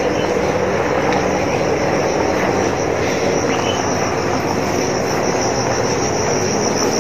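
Helicopter overhead: a steady rotor and engine drone with a low hum, and insects chirring steadily behind it.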